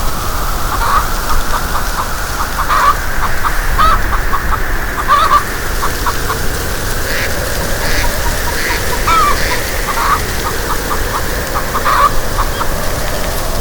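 Birds calling in short, repeated chirps and clucks over a steady background hiss.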